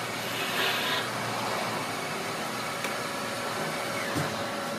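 Small CNC lathe running with its spindle and chuck turning, a steady machine noise. A brief hiss comes less than a second in, a faint steady whine joins about halfway through, and there is a small knock about four seconds in.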